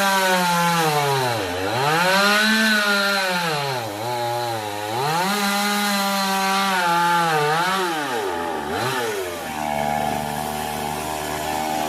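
Chainsaw engine running and cutting wood. Its speed rises and falls repeatedly, dropping sharply and climbing back about three times, then runs steadily at a lower speed near the end.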